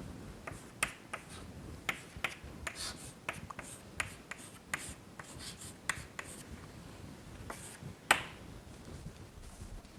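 Faint handwriting: irregular short scratchy strokes and taps of a writing tool as an equation is written out, with a sharper tap about eight seconds in.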